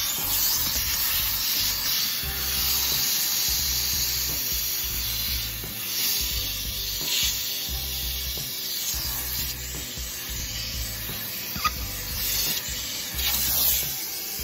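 HART 10-gallon wet/dry shop vacuum running, its hose and crevice nozzle sucking along car floor carpet: a steady hissing rush of air with a faint steady motor tone. One sharp tick about three quarters of the way through.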